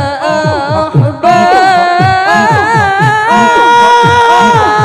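Zikir saman chant sung a capella: a lead qari's solo voice draws out an ornamented devotional line, holding a long note in the second half, over the group's low rhythmic chanting at about three pulses a second.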